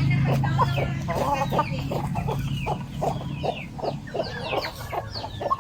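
Chickens clucking: a steady run of short clucks, about three or four a second, with higher, short falling chirps over them.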